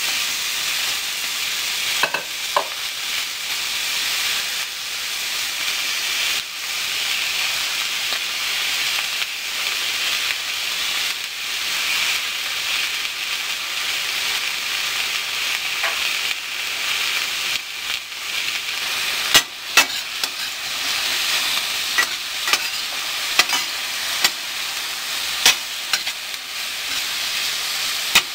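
Sliced bell peppers, zucchini and yellow squash frying in a stainless steel skillet, a steady sizzle. In the second half a utensil knocks against the pan a few times in sharp clicks as the vegetables are stirred.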